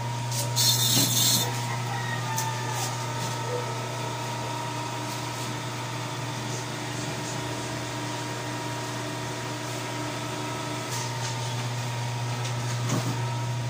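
Steady low machine hum with several held tones above it; the higher tones drop out about eleven seconds in. A brief hiss comes about a second in.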